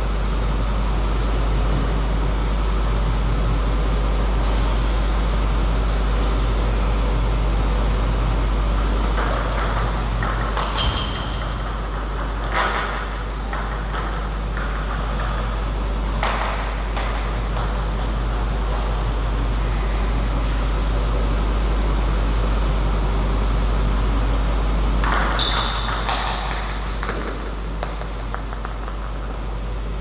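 Table tennis ball clicking off bats and the table in short runs of strikes, around ten seconds in and again about twenty-five seconds in, over a steady low hum.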